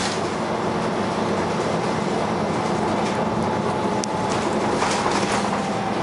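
Dennis Arrow double-deck bus under way, heard from inside the lower deck: steady engine and running rumble with a faint whine from its ZF automatic gearbox, slowly dropping in pitch. A single sharp click about four seconds in.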